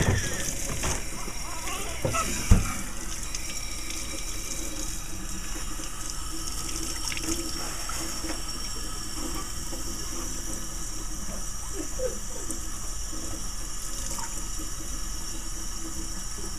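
Faucet running steadily into a stainless-steel sink while a newborn's hair is rinsed with a washcloth. A newborn's brief cry trails off right at the start, and there is one sharp knock about two and a half seconds in.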